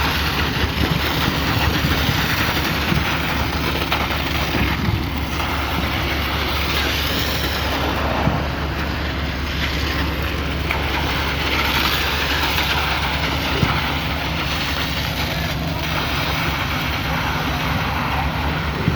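Truck-mounted concrete pump's engine running steadily, with a rushing noise that swells and fades and faint knocks every few seconds.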